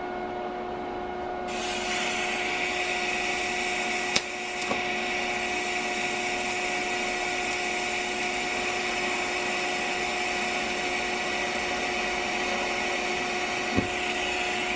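DC TIG welding arc on mild steel exhaust pipe at 70 amps: the arc strikes about a second and a half in and runs as a steady hiss over a constant hum, with two brief clicks. The tack still runs a little hot.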